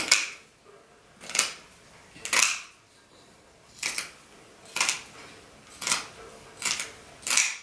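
Scissors snipping through fabric, one cut about every second, roughly eight cuts in all, as a skirt piece is cut out along its pattern.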